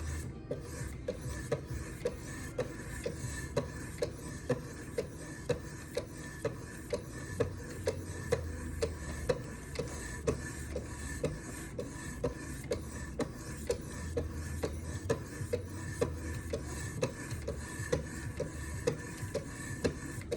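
Sharpening stones on a Wicked Edge guided sharpener stroking along a knife blade in a steady, even rhythm of short scrapes, a little under two a second.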